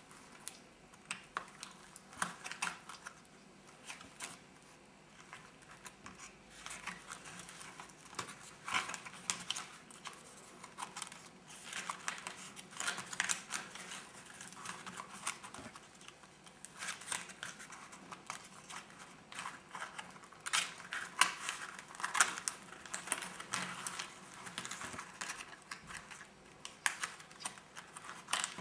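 Crumpled paper pages of a handmade sketchbook rustling and crackling as they are handled and turned, in irregular bursts.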